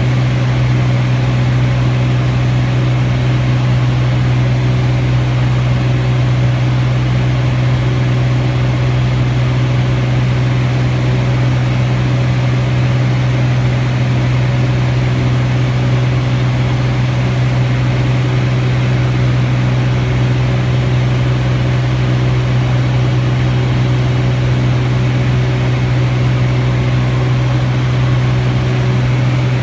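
Light aircraft's piston engine and propeller running at a constant setting, heard close as one loud, steady low drone that does not rise or fall.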